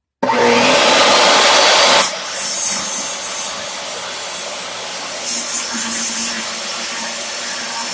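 DeWalt table saw switched on a moment in, running loudest for about two seconds and then settling to a steadier, quieter running noise with a faint hum.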